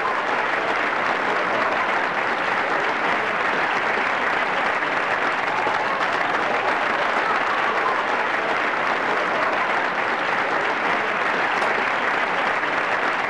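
Audience applauding, a dense steady clapping that holds at one level.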